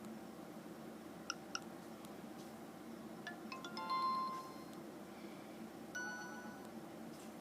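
Alcatel A205G cellphone playing its built-in ringtones through its small speaker: two short beeps about a second in, then a brief melody of bright electronic notes about three seconds in, and another ringtone starting about six seconds in.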